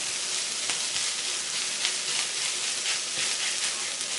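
Fried rice with egg, pork belly and chopped leek sizzling steadily in a hot non-stick frying pan, stirred and pressed with a silicone spatula, its strokes faint scrapes through the hiss.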